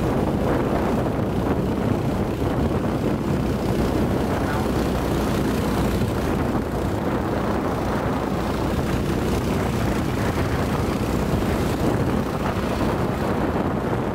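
A small motorboat's engine running steadily as the boat travels through the water, with wind noise on the microphone.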